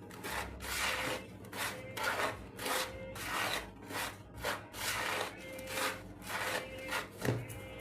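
Dry flour, sugar and salt being mixed in a bowl: rhythmic scraping, rubbing strokes, about two a second.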